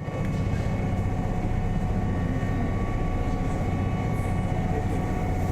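Steady low rumble of a running vehicle, with faint steady whining tones above it.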